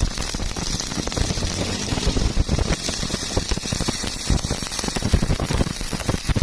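Electric welding arc crackling steadily, thick with irregular pops and snaps.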